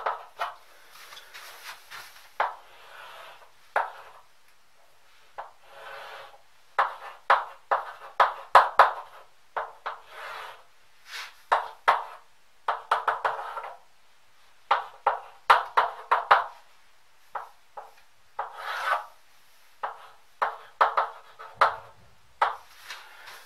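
Chalk writing and drawing on a blackboard: quick bursts of short scratches and taps as figures are written and lines are ruled, with brief pauses between them.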